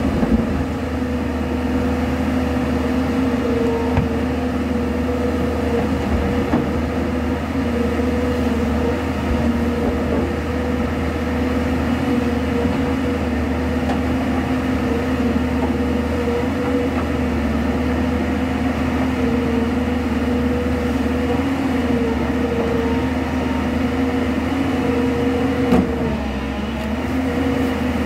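JCB tracked excavator's diesel engine running steadily with a steady droning tone while it digs, with a few brief knocks as the bucket works the rock-and-earth face.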